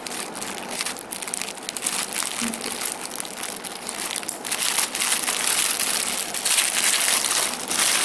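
Clear plastic garment bag crinkling as hands open it around a folded tank top: a dense, continuous crackle that grows louder in the second half and peaks near the end as the bag is pulled apart.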